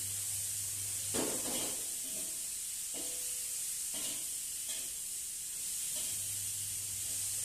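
Spice paste, chillies and onion sizzling in oil in a frying pan, with a spatula stirring and scraping against the pan in about five strokes, and a low steady hum under it.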